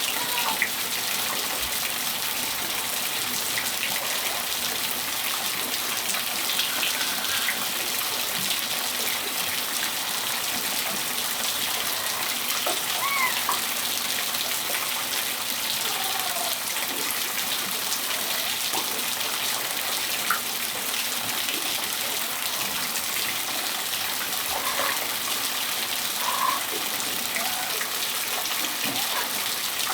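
Steady rain falling on a patio, a dense even hiss, with a few faint short bird calls here and there.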